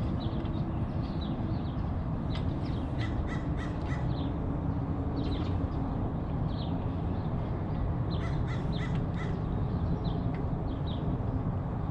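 Birds calling: two bouts of short, harsh, rapid calls, a little way in and again about two-thirds through, while a smaller bird chirps over and over, over a steady low rumble.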